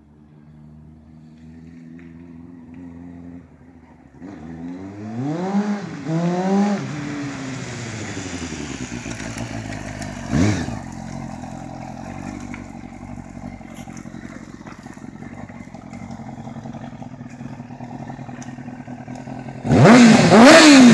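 Sport motorcycle engine getting closer, revved twice in quick succession about five seconds in, then running steadily with one short throttle blip around ten seconds. Near the end it is revved hard twice close by, the loudest part.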